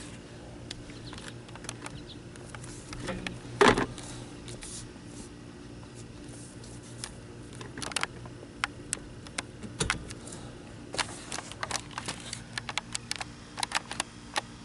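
Scattered light clicks, taps and small rattles of tools and parts being handled, with one louder knock about four seconds in, over a faint steady low hum.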